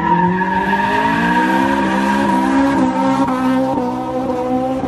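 Car spinning its tyres as it pulls away: a steady tyre squeal over an engine whose pitch climbs slowly, easing off a little near the end.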